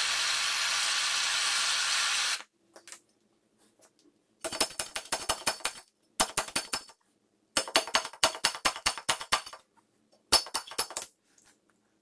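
Gas blowtorch flame hissing steadily for about two seconds, heating the aluminium engine block around a core plug, then cutting off. Then four runs of rapid, sharp metallic knocks as a slide-hammer puller's weight is worked up and down its rod to draw the core plug out.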